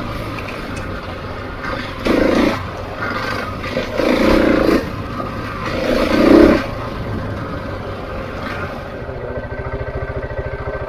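Husqvarna 701's big single-cylinder four-stroke engine running under way, surging three times about two seconds apart as the throttle is opened, then settling into a slow, even chug near the end.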